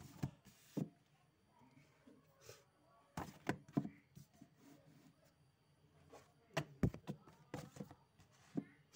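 Books being handled and set back down on a shelf: scattered thunks and taps, in a cluster about three seconds in and another around seven seconds.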